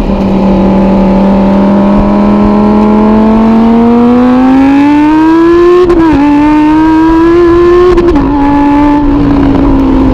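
Lamborghini Huracán's V10 engine running. The note holds steady, then climbs in pitch and drops sharply about six seconds in. It climbs again, drops near eight seconds, and eases slowly lower.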